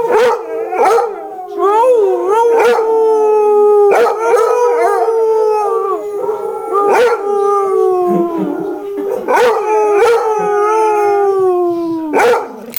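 Basset hound howling: several long, drawn-out howls in a row, each sliding slowly down in pitch, set off by another basset's howling played from a YouTube video.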